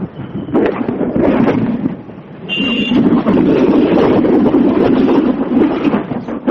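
Wind and road noise over a mobile phone call from a rider on a motorbike, a rough rushing that drowns the line. It grows louder about two and a half seconds in, with a brief high tone at that point.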